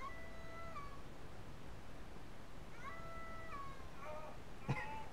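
Wet tabby cat, held in a towel, giving two long drawn-out meows, each held at one pitch and dropping at the end, then shorter cries about four seconds in. A sharp knock comes just before the end.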